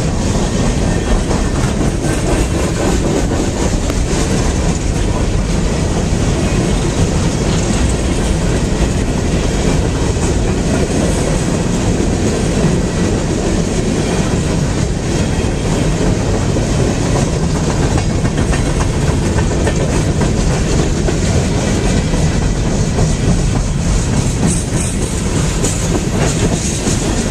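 Long train of open-top coal cars rolling past, its steel wheels running on the rails in a steady, even noise.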